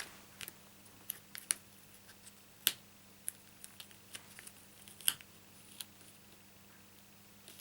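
Irregular light clicks and taps of hands handling paper card pieces and small craft tools at a work surface, about ten sharp ticks with the loudest two near the middle and a little past it.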